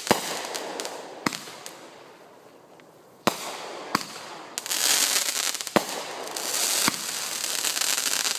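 Fireworks going off: about seven sharp bangs at uneven intervals, over dense crackling that dies away in the first few seconds and swells up again about halfway through.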